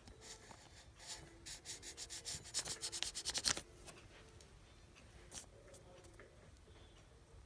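Felt-tip marker scribbling on notebook paper in quick back-and-forth scratchy strokes, speeding up to about eight a second and stopping about three and a half seconds in, then one single stroke a couple of seconds later.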